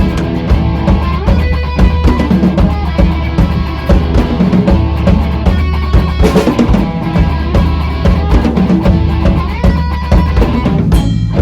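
Rock band playing an instrumental passage: distorted electric guitar and bass over a drum kit with steady kick and snare hits.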